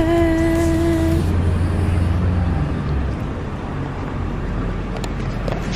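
Street traffic: a vehicle's low engine rumble for the first few seconds, fading to general roadway noise. A steady pitched tone sounds for about a second at the start.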